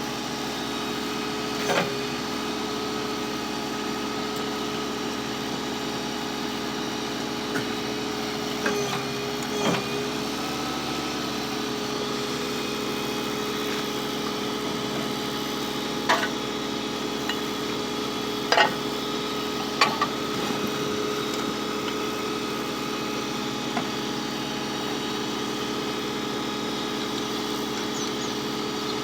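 Car engine running steadily, with a handful of short sharp knocks at irregular moments.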